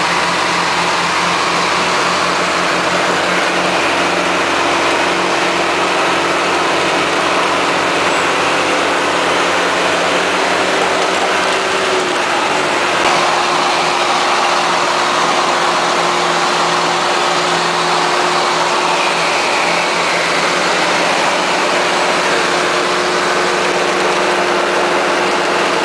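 Truck and farm tractor engines running steadily at low speed, heard from inside the truck's cab, as the tractor tows through deep mud. The hum is even, its pitch shifting slightly about halfway through.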